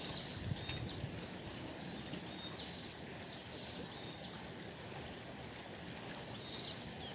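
Riverside ambience: a steady low rush from the flowing river, under an insect's thin, high, steady buzz and a bird's short chirps repeated every second or two.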